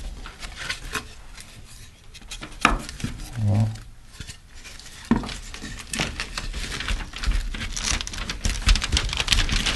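Crinkling rustle of Tyvek house wrap and light wooden knocks as OSB furring strips are handled and pressed onto the wrapped wall around a window, with a couple of sharp knocks in the first half and busier rustling and clicking from about six seconds in.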